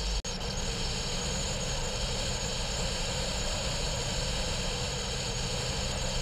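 A car travelling along a highway: steady engine, tyre and wind noise, with one brief dropout about a quarter second in.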